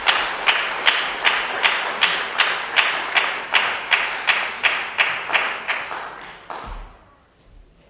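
Audience applauding in unison, a steady rhythmic clap of about two and a half beats a second that dies away near the end, followed by a low thump.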